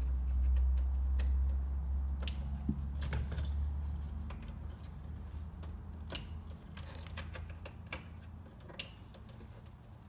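Scattered small plastic clicks and rattles as hands push wiring connectors onto the back of a Porsche Boxster instrument cluster, over a low rumble that fades after the first few seconds.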